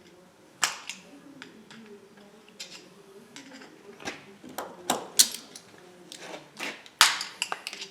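Metal parts of an Ingersoll Rand 3/4-inch air impact wrench clinking and knocking as it is taken apart by hand: irregular sharp clicks and clanks, the loudest about a second in, two-thirds through and near the end.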